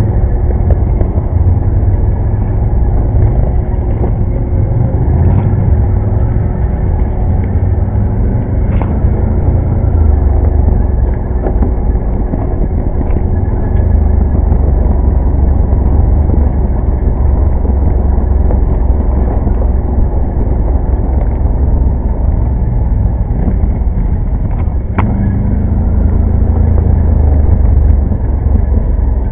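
ATV engine running under way on a dirt trail, a loud, steady low rumble. A faint steady hum in it drops out about two-thirds of the way through.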